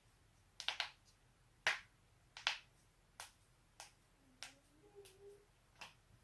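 Joints cracking: a string of about nine sharp pops at irregular intervals, the loudest two in the first half.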